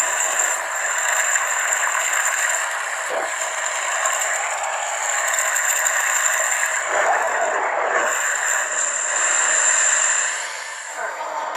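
Lightsaber sound font playing through a Proffie saber's speaker: a steady, crackling, hissing hum with a high whine over it, dropping in level for about the last second.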